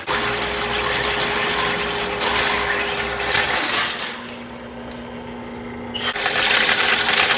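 Motorized drain-cleaning machine (sewer snake) running, its spinning cable clattering with a steady motor hum; it eases off about four seconds in and comes back loud about six seconds in.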